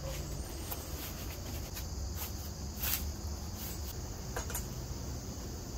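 Steady insect chorus, high-pitched and continuous. A few soft rustles and clicks from a costume and plastic frame being handled break in about two, three and four and a half seconds in.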